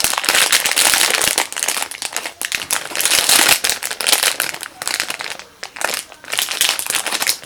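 Irregular crinkly rustling as an I Bloom Jumbo Peach foam squishy toy is squeezed and handled close to the microphone.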